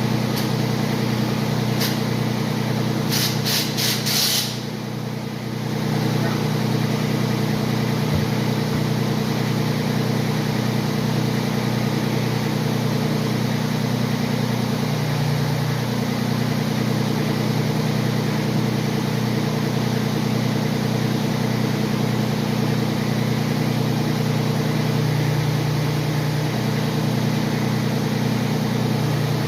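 Grasshopper mower engine running steadily at an even speed, with a few sharp clicks about two to four seconds in.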